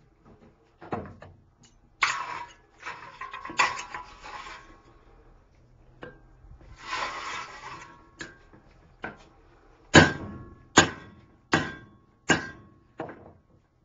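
Blacksmith's hammer striking steel on an anvil near the end, five ringing blows about three-quarters of a second apart. Before that come two stretches of rough scraping noise.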